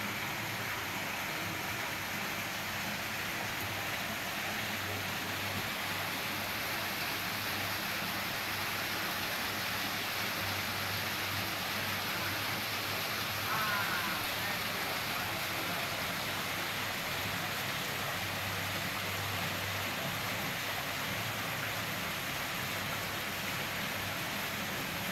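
Garden waterfall pouring steadily into a koi pond, a constant splashing rush of water, with a brief faint chirp about halfway through.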